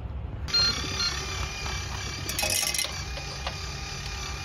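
Squirrel-feed vending machine running as it dispenses nuts: a steady electronic whine of several held tones that starts suddenly half a second in, with a brief clatter about halfway through.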